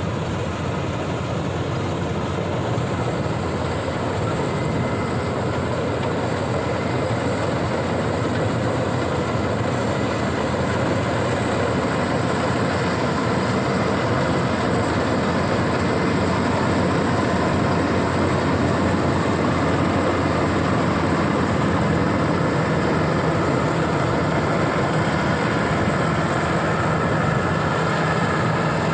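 Rice combine harvester running steadily under load, its engine and threshing machinery making a dense, continuous mechanical noise with a thin high whine on top. It grows slightly louder as it goes.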